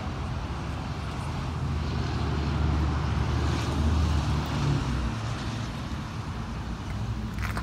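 A car engine running at low, steady speed, swelling in level around the middle and then easing back. A couple of sharp clicks come near the end.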